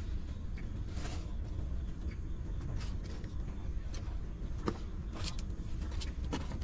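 Newborn puppies suckling at their mother, with scattered short wet clicks that come more often near the end, over a steady low rumble.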